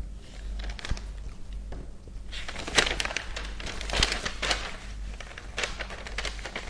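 Faint irregular clicks and crackles over a steady low hum, thicker from about two seconds in.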